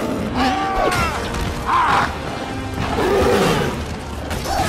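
Battle soundtrack: music with shouting voices and crashes of combat over it, including loud cries in the first second and again about two and three seconds in.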